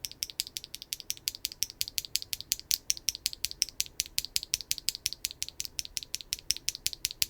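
Keygeek Orange Boi linear mechanical keyboard switch, with a nylon-and-fiberglass bottom housing, pressed over and over in quick succession: an even run of high-pitched clacks, about seven or eight a second.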